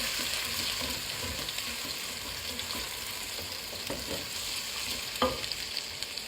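Onions, garlic and ginger sizzling in hot oil in a metal cooking pot as they are stirred, with a couple of sharp clicks of the spoon against the pot about four and five seconds in.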